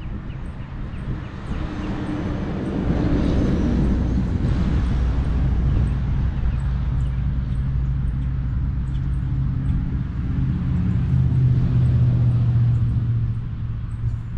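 A motor vehicle's engine running: a low steady hum that builds about two seconds in, with a swell of noise around three to four seconds, and eases off near the end.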